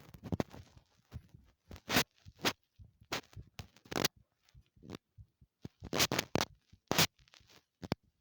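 Rubbing and knocking on a body-held heartbeat microphone: irregular sharp scrapes and knocks against skin and clothing, loud enough to drown out the heartbeat.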